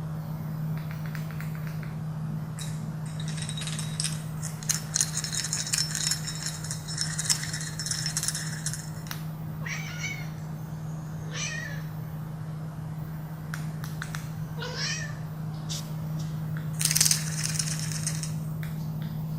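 Domestic cat making short rising meows during play, three in the middle stretch. Bursts of clicking and rattling come earlier and again near the end, over a steady low hum.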